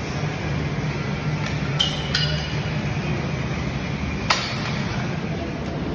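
Sharp metallic clinks of gym weights, three of them, the loudest about four seconds in, over a steady low background hum.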